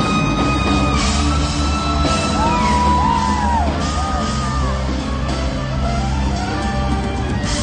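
Live band playing, with acoustic guitar, electric bass and soprano saxophone, under long held notes. Audience members whoop and yell over the music, with a rising-and-falling whoop about three seconds in.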